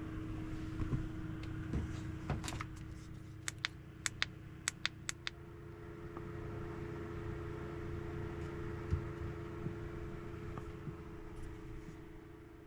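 A steady mechanical hum with two held tones over a low rumble, and a quick run of about ten sharp clicks a couple of seconds in.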